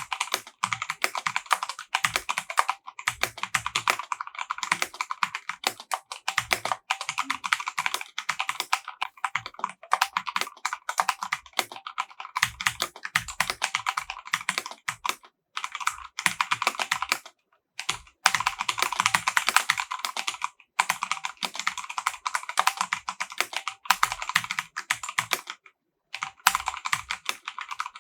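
Rapid, continuous typing on an EVGA Z15 mechanical keyboard with silver linear switches: a dense patter of key clacks, broken by a few short pauses.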